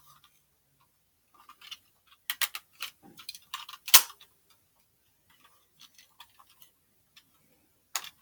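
Scattered small clicks and taps from handling a boxed plastic toy and its packaging, with a cluster of clicks a couple of seconds in and one sharper click about four seconds in.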